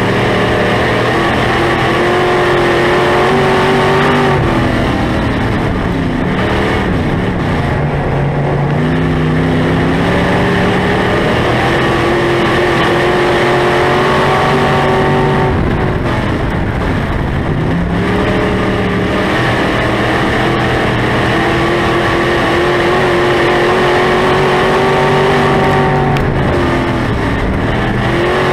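A SportMod race car's engine heard from inside the cockpit. It climbs steadily in pitch as it accelerates, then drops sharply as the driver backs off, three times, about every eleven seconds.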